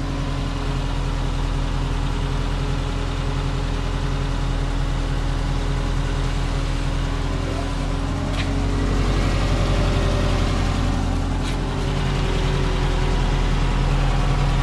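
1997 Subaru Impreza's flat-four engine idling steadily, a little louder about two-thirds of the way through.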